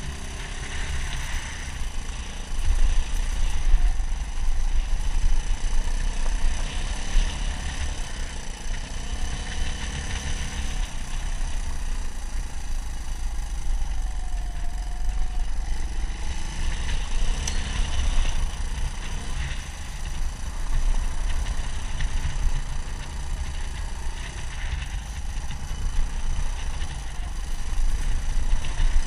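Suzuki DR200 dual-sport motorcycle's single-cylinder four-stroke engine running under way, with heavy, fluctuating wind rumble on the microphone.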